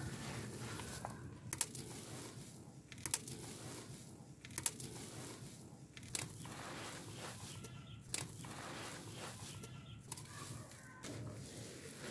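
Dry, dusty charcoal powder with small gritty chunks being squeezed and crumbled in bare hands and sifted back into a plastic tub. It makes a soft gritty hiss broken by a few sharp crunches.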